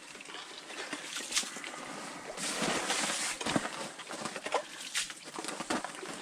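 Ice scoop scraping and crunching through slush and ice chips in an ice-fishing hole, with irregular scrapes and clicks and a longer rough scrape near the middle.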